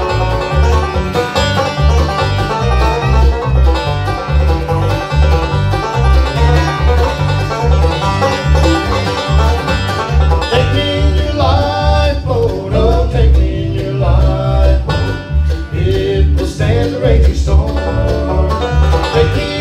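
Live bluegrass band playing, with banjo rolls, fiddle, strummed acoustic guitar and electric bass keeping a steady beat.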